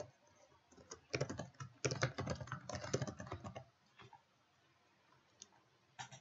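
Typing on a computer keyboard, several quick runs of keystrokes that stop about three and a half seconds in. A single mouse click comes near the end.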